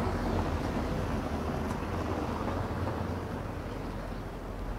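Street traffic: a steady low rumble of motor vehicles, a little louder near the start and easing off.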